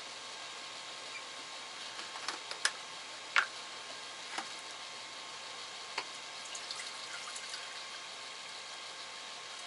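Kitchen handling sounds as water is got ready: a few scattered clinks and knocks, the sharpest about three and a half seconds in, then a run of small ticks, over a steady low hiss.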